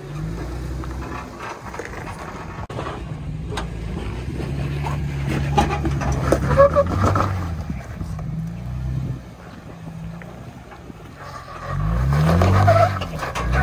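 Jeep Wrangler engine pulling at low speed as the Jeep crawls up bare slickrock under throttle. Near the end it is revved up and down several times in quick succession.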